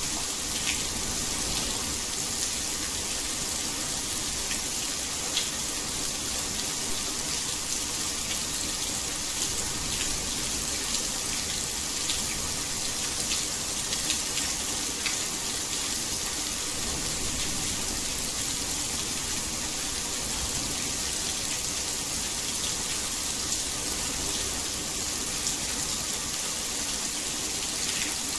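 Heavy rain falling steadily: a dense, even hiss with occasional sharper drop ticks.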